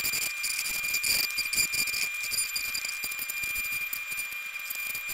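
Electric hair clippers running with a steady high whine, their blades shearing the soft underfur off a hare's mask with a fine, irregular crackle.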